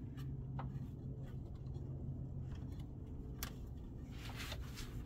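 Faint clicks and short scrapes of a plastic radiator hose quick-connect and its retaining clip being worked loose by hand on a BMW 328i, plastic on plastic, over a steady low hum.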